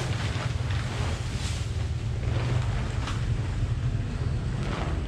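Large tent sheet rustling and crackling in several short bursts as it is lifted and spread out, over a steady low rumble of wind on the microphone.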